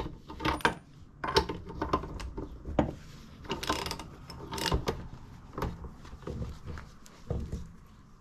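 Irregular metallic clicks, knocks and scrapes of hand tools and parts being worked on a motorcycle engine's crankcase while the cases are split apart.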